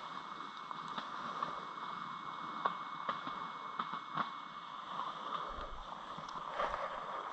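Steady outdoor background hum and hiss with scattered faint ticks and rustles; nothing stands out above it.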